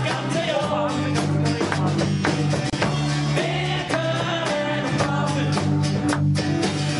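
Live band playing a rock song: a man singing over guitar, a steady bass line and drums.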